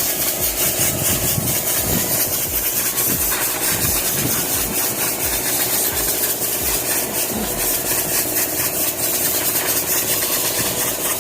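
An engine running steadily at idle, with an even mechanical hum and a slight pulsing texture throughout.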